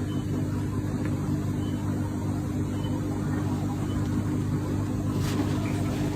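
A steady low mechanical drone from a running motor, with a faint click about five seconds in.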